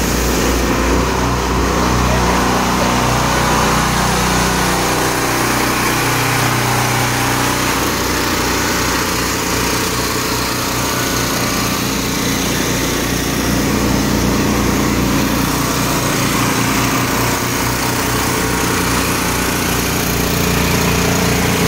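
Small gasoline engines on a twin-rig pressure-washing trailer running steadily at a constant speed, driving their triplex pumps.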